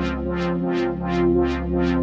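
Sequential Take 5 analog polysynth playing one of its patches. A held low bass and sustained chord sit under bright pulses that repeat about three times a second.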